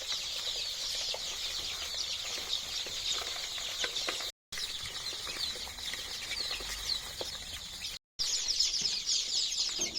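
A brood of twelve-day-old local chicken chicks peeping continuously in many short, high cheeps. The sound cuts out for a split second twice, about 4 and 8 seconds in.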